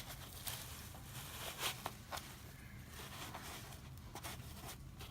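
Faint rustling and scraping of packaging foam and wrapping as pieces are handled and pulled out of the box, in a handful of short scuffs.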